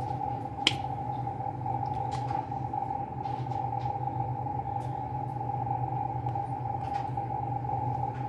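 Steady machine hum made of a low tone and a higher tone, with one sharp click a little under a second in and a few faint clicks later.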